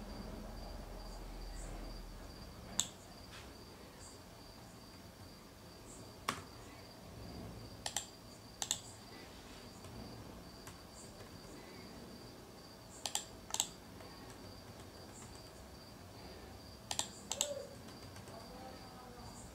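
Computer mouse clicks, single and in quick pairs, a few seconds apart, over a faint steady high-pitched tone.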